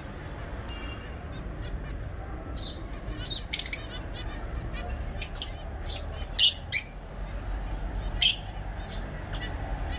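Caged pet birds calling: short, sharp, high chirps and squawks at irregular intervals, several in quick succession about five to seven seconds in.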